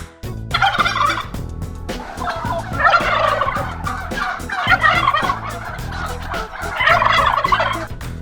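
Domestic turkey gobbling: a short gobble, then a long run of rattling gobbles and a last one near the end, over background music with a steady beat.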